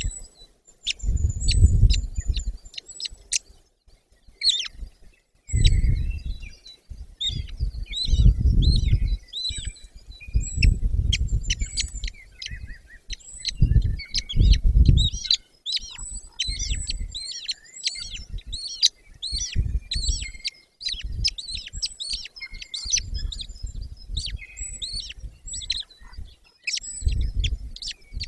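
Birds chirping busily, a dense run of short, high chirps that sweep downward. Over them come repeated low rumbling gusts lasting a second or two each, which are the loudest sound.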